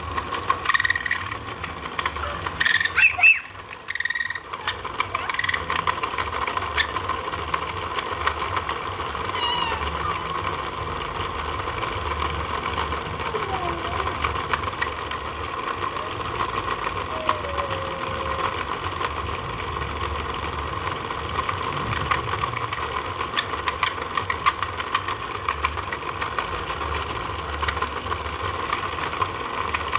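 A motor running steadily: an even hum with a fast, fine ticking over a low rumble. A few clicks and knocks sound in the first few seconds.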